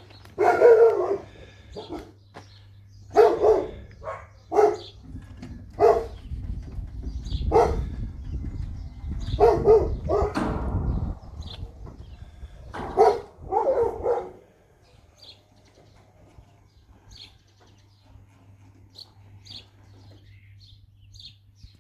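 A dog barking in short single barks, about ten of them spread over the first fourteen seconds, with a low rumble under the middle barks. Faint bird chirps follow once the barking stops.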